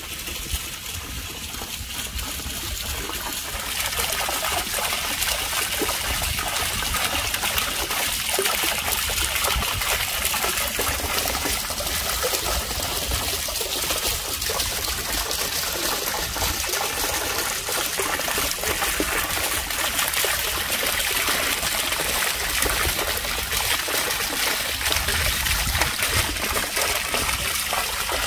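Fountain water running and splashing over granite stone: a steady rush that grows a little louder about four seconds in.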